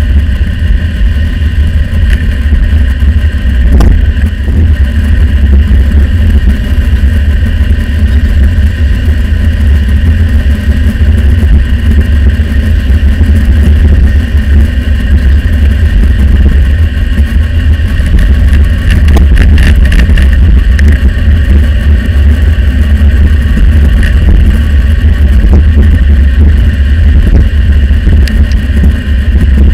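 Loud, steady wind buffeting on the microphone of a handlebar-mounted camera on a moving bicycle, a constant deep rumble, mixed with road and traffic noise. The audio is sped up twice.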